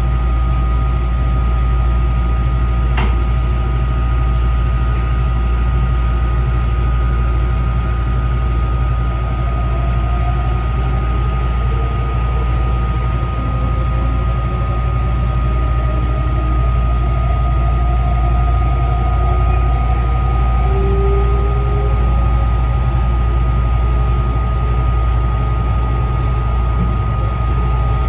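Taichung MRT Green Line train running, heard from inside the front car: a steady low rumble with a constant high whine. A fainter motor tone rises slowly through the middle.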